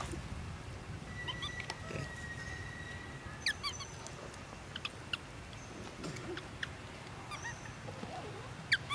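Scattered short, high-pitched animal chirps and squeaks that drop quickly in pitch, bunched about three and a half seconds in and again near the end. A steady high whistle holds for about two seconds near the start.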